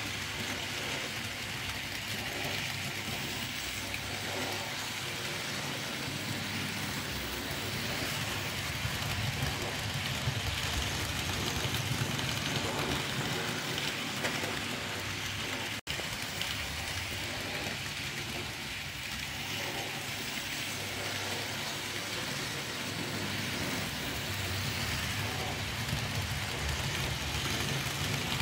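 N gauge model train running along the track: a steady whir of the small motor with the rumble of wheels on the rails. The sound cuts out for an instant about halfway through.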